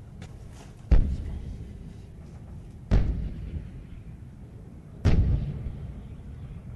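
Three heavy booms about two seconds apart, each trailing off in a low rumble.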